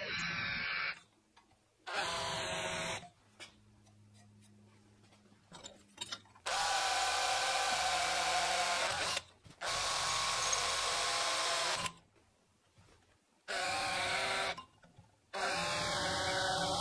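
Cordless drill cutting into steel flat bar in six separate bursts. There are short bursts with a countersink bit near the start and near the end, and two longer runs in the middle with a twist drill bit boring through the steel. The motor's whine falls away as it spins down at the end of some bursts.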